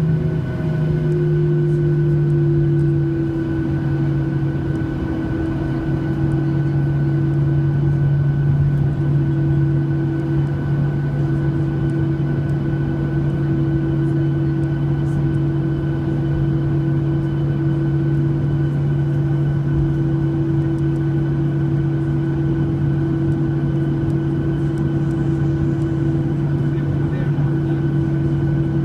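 Boeing 737-800's CFM56-7B jet engines heard inside the passenger cabin, a steady drone with a low hum and a fainter high whine. The pitch eases down slightly in the first few seconds and then holds.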